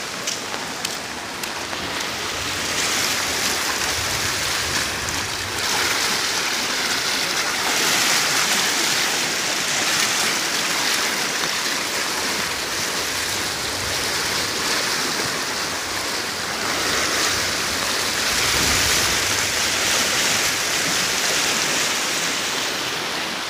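A river in flood after heavy rain, rushing past in a steady dense sound of moving water that swells and eases, with rain falling on an umbrella.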